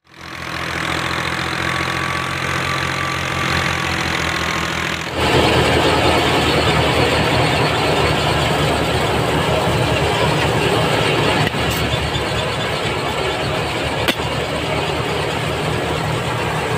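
Wheat thresher running at full speed, driven from the PTO of a Fiat 480 diesel tractor: a steady dense mechanical rattle and rush over the low drone of the tractor engine. It grows louder about five seconds in, and there is one sharp click near the end.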